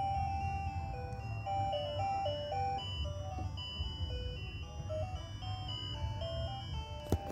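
Ice cream truck chime playing a simple electronic jingle through its loudspeaker, a tune of short stepped notes, over a low rumble. A sharp click sounds near the end.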